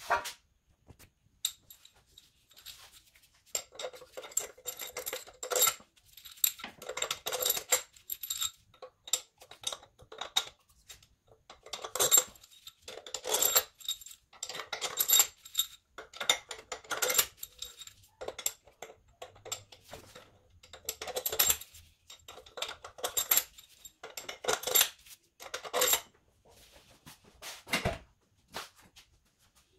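Hand tools and steel head bolts clicking and clinking in short repeated bursts with a ringing metal tone, as the head bolts are run down into a Toyota 2AZ cylinder head before torquing.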